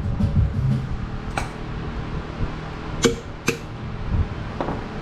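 Hand tools clinking against metal engine parts while a connecting rod cap is worked off: a few sharp, separate metallic clinks, one about a second and a half in and two close together about three seconds in.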